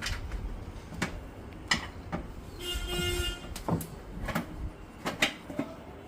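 Several sharp clicks and knocks over a low rumble, with a short pitched squeak a little under halfway through.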